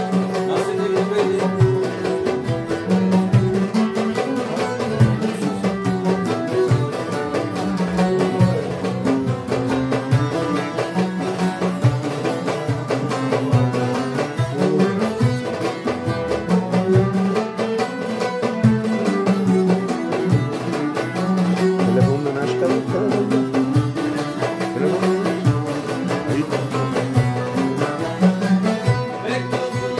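An instrumental passage of Turkish folk music played live on oud, violin and bağlama, the plucked and bowed melody lines moving together over a steady hand-drum rhythm.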